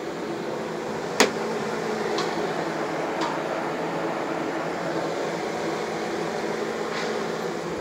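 A steady mechanical whir with a faint hum, with one sharp click about a second in and a few softer clicks later.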